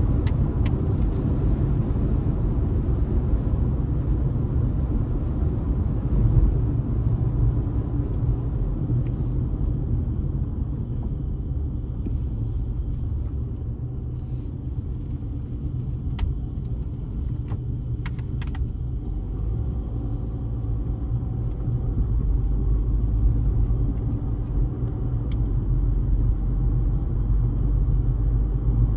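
Steady low rumble of a car driving along a road, tyre and engine noise, easing a little midway and building again near the end. A few faint clicks sound in the middle stretch.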